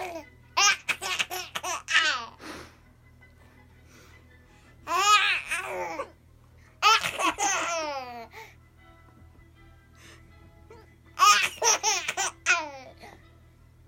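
A baby laughing in four bouts, each a run of quick, high-pitched laughs, with short pauses between them.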